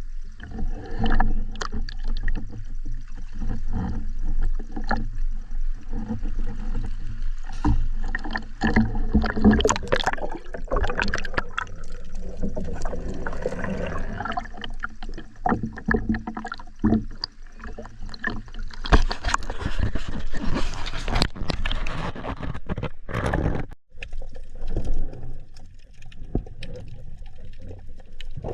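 Sea water sloshing and gurgling, with many irregular clicks and knocks throughout.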